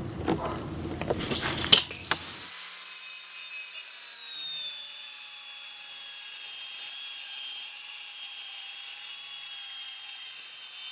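Corded circular saw running and cutting through 3/4-inch plywood: a steady whine that sags slightly in pitch as the blade works through the sheet. Before the saw starts, a couple of seconds of knocking and handling with one sharp click.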